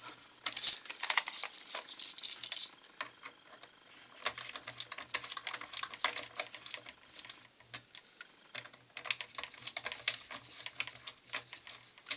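Small screwdriver tightening the mounting screws of a brushless model-aircraft motor: a run of irregular clicks and scrapes of metal on metal, thickest about half a second to two and a half seconds in, as the screws are drawn up against silicone-tube spacers.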